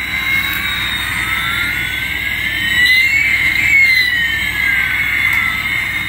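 Toy transparent-gear Airbus A380 playing its built-in jet engine sound effect: a steady hissing roar with whining tones that rise and fall, crossing about halfway through.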